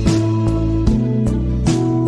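Background music: gentle plucked guitar chords over a steady beat.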